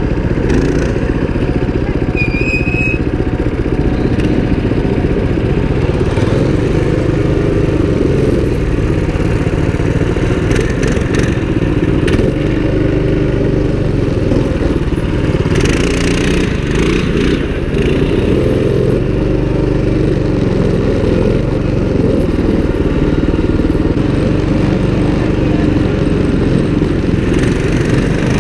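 Mini bike's small single-cylinder engine running under way on a dirt trail, its pitch rising and falling as the throttle is worked.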